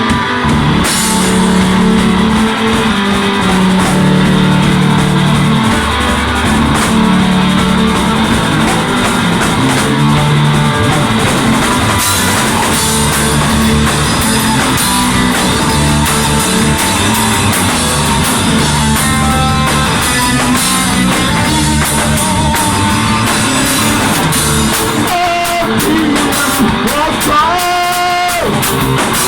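Rock band playing, with electric guitar and drum kit.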